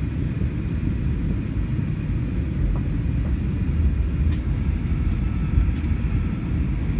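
Steady cabin noise inside an Airbus A321 airliner on approach: a low rumble of engines and airflow with a faint high steady whine.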